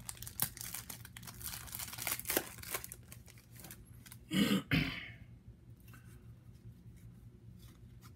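Trading cards and pack wrapper being handled: quick scratchy rustling and crinkling as cards are slid and shuffled. A short, loud voice sound, like a cough, comes about four and a half seconds in.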